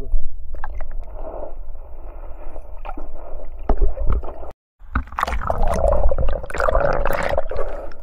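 Muffled water sound recorded by a submerged action camera: gurgling and sloshing with a low rumble and scattered knocks. It drops out for a moment a little past halfway, then comes back louder and busier.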